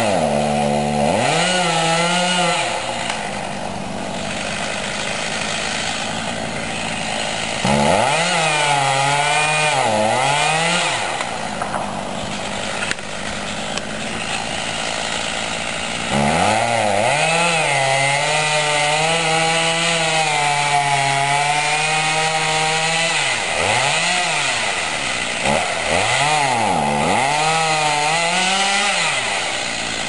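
Two-stroke chainsaw cutting into a tree trunk during a felling cut. The engine revs rise and fall again and again as the throttle is worked, with a longer steady stretch at speed in the cut about halfway through.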